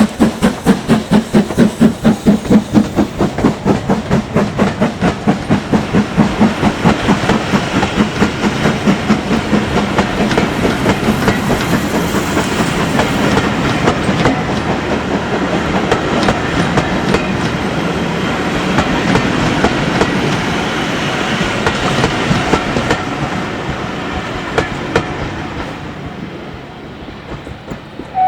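Steam locomotive pulling away. Its exhaust beats come about three a second at first, then quicken and blur into a steady chuffing as it gathers speed, and fade over the last few seconds as it moves off.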